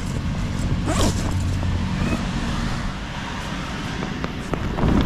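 Electric inflator blower of an inflatable bounce castle running with a steady low hum, with vinyl rustling and a short rasp about a second in and again near the end as the castle's deflation vents are handled.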